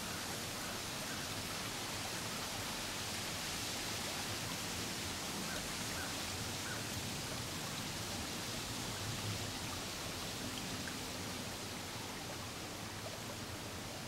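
Steady outdoor ambience: an even, unbroken hiss with a few faint short chirps now and then.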